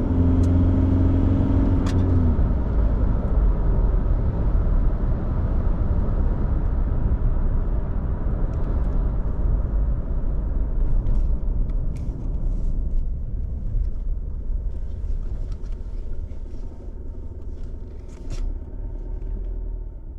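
Isuzu D-Max's 3.0-litre four-cylinder turbo-diesel running hard on an acceleration run. Its engine note cuts off about two seconds in, leaving a low road rumble that slowly fades as the ute slows.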